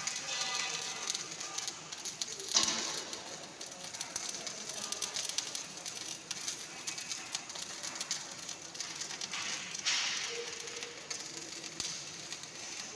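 MIG welding arc crackling and spattering steadily, with two louder surges, one early and one near the end.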